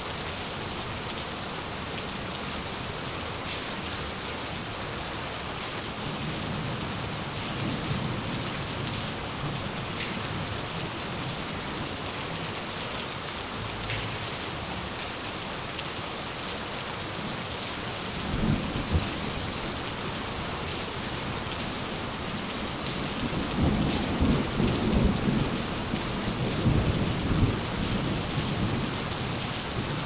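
Steady rain falling, with thunder rumbling low several times: a short rumble a little past halfway and a longer, louder rolling one near the end.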